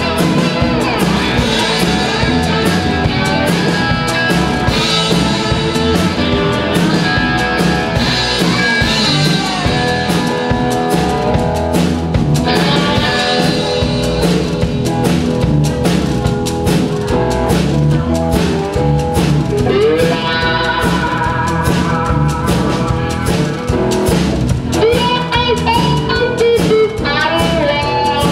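Live blues-rock band playing an instrumental stretch on cigar box guitars over a drum kit, with lead lines that bend up and down in pitch.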